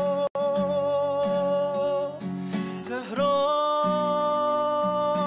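Persian pop song between sung lines: a long held melody note over a steady, pulsing plucked accompaniment. It slides up to a new held note about three seconds in.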